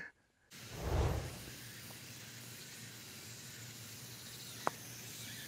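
Steady outdoor hiss with a brief low rumble about a second in, then a single sharp click near the end as a golf club strikes the ball, which comes up a little short.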